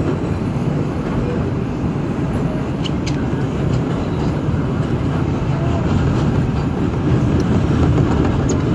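R142 subway car running on elevated track, heard from inside the car: a steady rumble of wheels on rail, with a few faint clicks about three seconds in.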